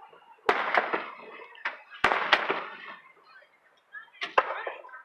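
Aerial fireworks exploding: three sharp bangs roughly two seconds apart, each trailing off in a crackling rush.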